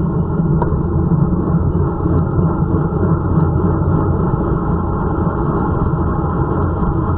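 Wind rushing over the microphone of a camera mounted on a road bike descending at high speed: a loud, steady low rumble with little treble.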